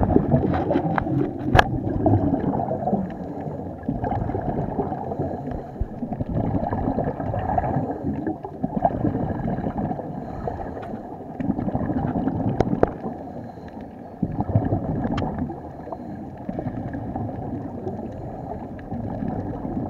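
Scuba diver breathing through a regulator, heard underwater: muffled bubbling surges every few seconds as exhaled air escapes, with a few sharp clicks.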